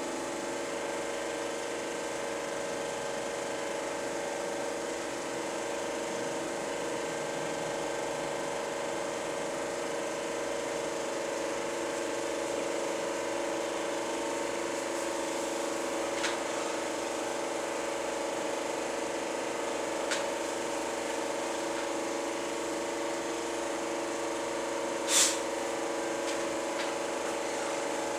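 Super 8 film projector running steadily, its motor humming with the whir of the film mechanism, with a few sharp clicks, the loudest about 25 seconds in.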